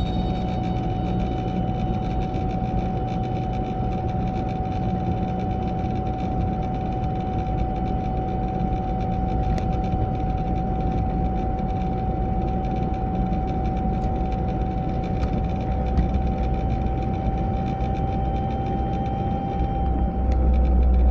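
Volvo 940 driving, heard inside the car: steady road and drivetrain rumble with a clear whine held at one pitch, which shifts slightly near the end as the rumble swells. This is the unidentified noise the owner hears from the passenger side at about 30 to 40 mph.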